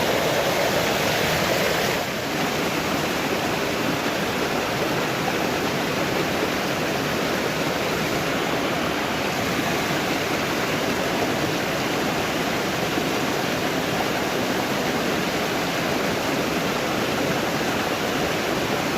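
Steady rushing of flowing river water, a dense even wash of noise.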